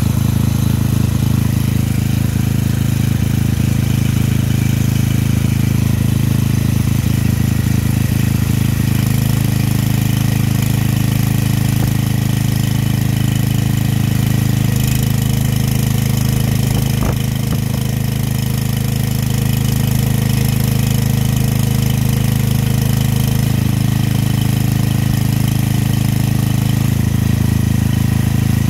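Briggs and Stratton-engined 4.9 kVA portable generator running steadily while powering a fan heater. Its low engine note shifts slightly a few times, and there is one faint click about halfway through.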